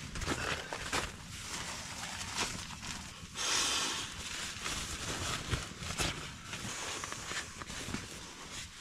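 Kindling being split and handled: irregular sharp knocks and clicks over rustling, with a short rushing hiss about three and a half seconds in.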